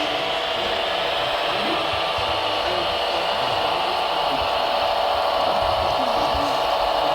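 Small electric motor of a radio-controlled model machine running with a steady whine.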